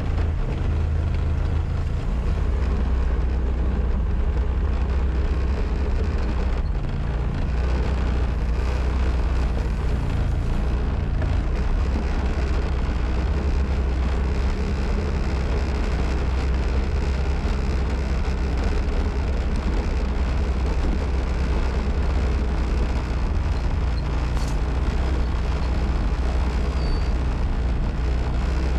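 Motorbike engine running at a steady pace while it is ridden, a constant low hum.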